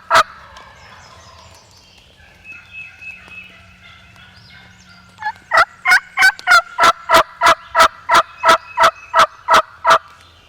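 Turkey yelping: one last loud yelp at the start, then, about five seconds in, a long run of about fifteen loud, evenly spaced yelps, about three a second. Faint songbirds sing in the gap between.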